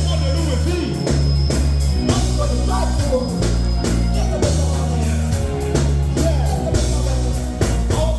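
Music playing with a heavy bass line and a regular drum beat, with a singing voice over it.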